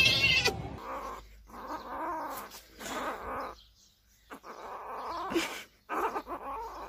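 Kitten giving a run of about five drawn-out cries with short breaks between them, made with a slice of salami held in its mouth.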